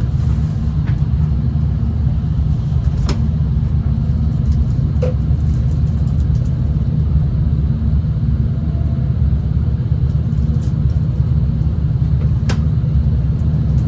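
Steady low rumble of a V/Line passenger train running along the line, heard from inside the carriage, with a couple of sharp clicks.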